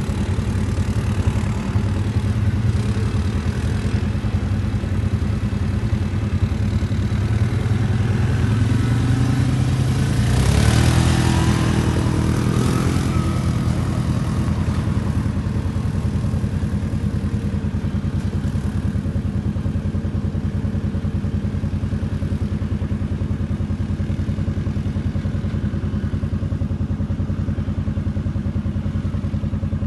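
ATV engines running steadily, with a low even drone. About ten seconds in, one engine grows louder and its pitch swings as the quad works over the rocks close by, then it settles back to a steady run.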